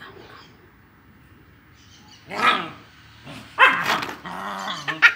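Dog barking and growling in play: a short bark about two seconds in, then a louder bark and a drawn-out wavering grumble near the end. The dog is pestering to be played with.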